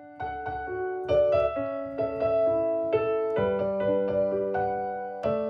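Short piano music: a melody of struck notes over held lower notes, ending on a chord struck near the end that rings on.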